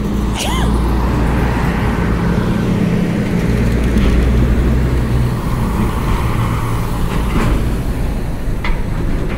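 Street traffic, with a motor vehicle's engine running close by as a loud, steady low rumble that swells twice.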